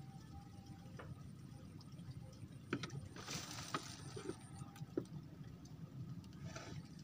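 Brief splashing at the water's surface beside a bamboo raft, about three seconds in, with a few sharp clicks and knocks around it, over a steady low rumble.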